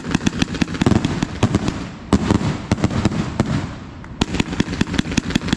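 A 300-shot Thunder King consumer firework cake firing in rapid volleys of launches and bursts, many shots a second. The shots dip briefly about two seconds in and again near four seconds, then come thick again.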